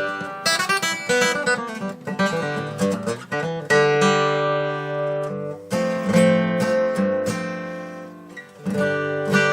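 Epiphone FT-130 acoustic guitar played with its action freshly lowered: quick picked notes first, then strummed chords that ring out and fade, and more strumming near the end.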